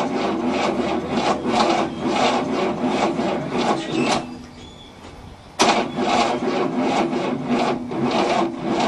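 1967 Cadillac's 429 V8 being cranked slowly by its starter motor: a rhythmic churning of a few compression strokes a second, with no firing. It stops about four seconds in and starts again about a second and a half later. The starter is not turning the engine fast enough to start, with the battery and jumper cable overheating.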